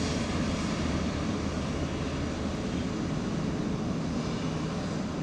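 Boeing 777-300ER's GE90 jet engines running on the runway: a steady, even rumble and hiss.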